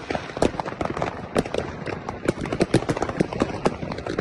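Fireworks going off in a rapid, irregular string of bangs and crackles, several a second, over a constant noisy bed.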